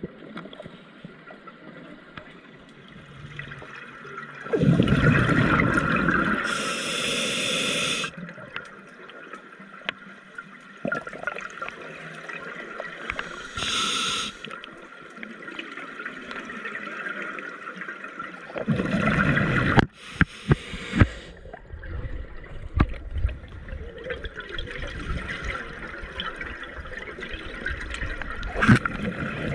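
Scuba diver breathing through a regulator underwater: a rush of exhaled bubbles about five seconds in and again near twenty seconds, a short hissing inhalation around fourteen seconds, with small clicks in between.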